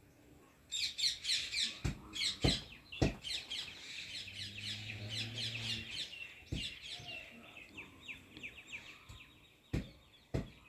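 Small birds chirping busily, many calls overlapping, starting about a second in and thinning out toward the end. A handful of sharp knocks cut through them, and a low steady hum sounds for about two seconds midway.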